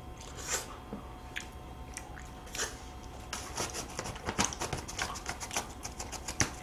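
Close-miked chewing and biting of a chocolate cookie ice cream sandwich: soft bites and wet mouth clicks, scattered at first and coming thick and fast from about halfway through.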